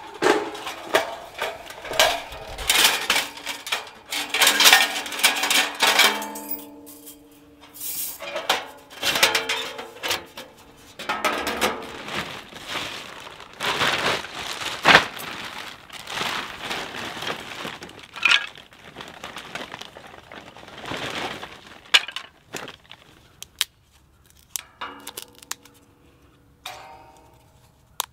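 Sheet-metal panels of a folding fire box clinking, scraping and rattling as it is unfolded and set up, with a plastic bag rustling as wood scraps go in. Many sharp clinks in irregular bursts, thinning out near the end.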